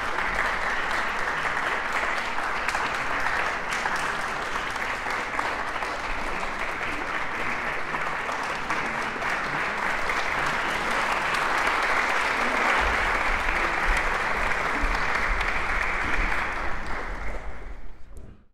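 Concert hall audience applauding steadily, fading out near the end.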